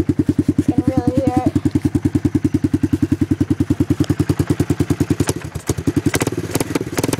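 Kawasaki 300cc four-wheeler's engine idling, an even rapid pulsing beat from its aftermarket DG muffler. A few sharp clicks and knocks come near the end.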